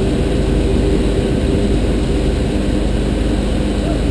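Pontoon boat's outboard motor running steadily under way, a constant drone that neither rises nor falls, with the rush of water along the hull.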